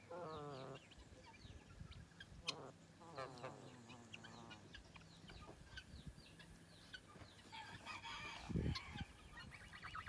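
Sleeping gosling making soft, quavering trills: one short warbling call right at the start and a longer one falling in pitch about two and a half seconds in. Faint high chirps from other birds run underneath, and there is a soft low thump about eight and a half seconds in.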